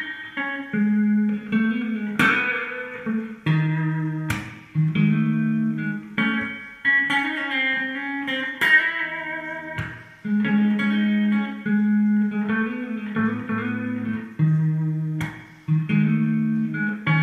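Electric guitar playing an instrumental melody: held single notes and phrases, with sharp picked attacks every second or two.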